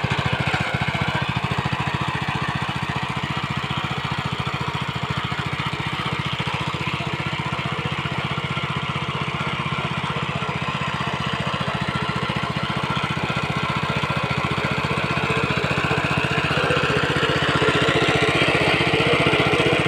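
Mini tractor's small engine running steadily with a rapid, even beat, getting a little louder near the end.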